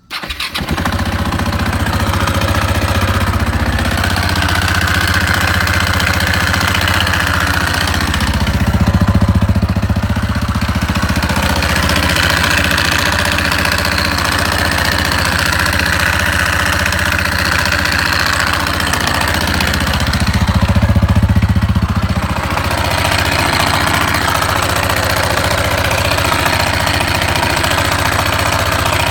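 KTM LC4 single-cylinder four-stroke motorcycle engine starting and then running steadily, swelling twice as the revs rise briefly. It is recorded to show an abnormal noise (異音) from the engine.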